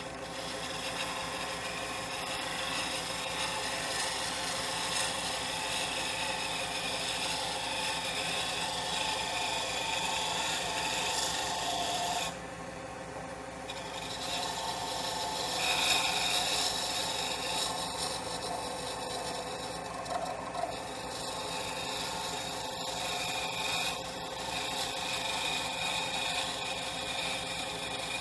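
A wood lathe runs with a steady motor hum while hand turning tools cut a spinning cocobolo pen blank, giving a continuous rough shaving hiss. Partway through, the cutting hiss breaks off for about a second and then resumes.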